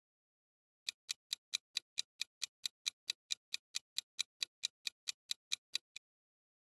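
Quiz countdown timer sound effect: a clock ticking fast and evenly, about four and a half ticks a second, about two dozen in all, starting about a second in and stopping shortly before the end.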